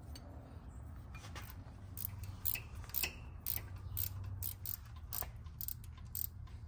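Ring gear and carrier of a Ford 9.75-inch rear differential being moved by hand with the cover off, giving a run of light metallic clicks from the gear teeth, about two a second, starting a little over a second in. A steady low hum runs underneath.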